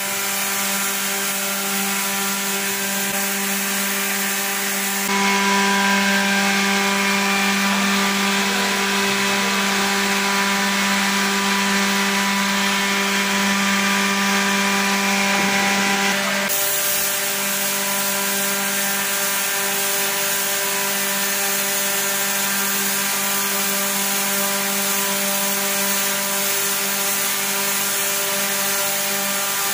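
Spray-painting equipment running: a steady machine hum topped by an even hiss of air. Its tone shifts abruptly twice, about five and about sixteen seconds in.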